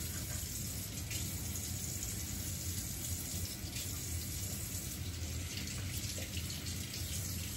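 Water running steadily from a tap into a sink, an even hiss with no breaks.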